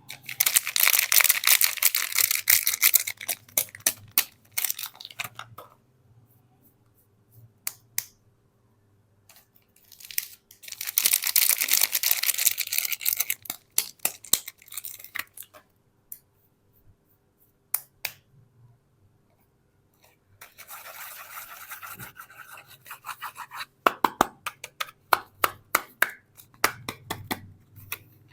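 Soap packaging being opened by hand close to the microphone: three bursts of crinkling and tearing with quiet gaps between them, then a run of sharp clicks and snaps near the end.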